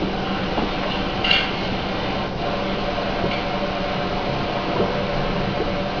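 Steady room noise in a hall: an even hiss with a low hum, and a brief faint rustle about a second in.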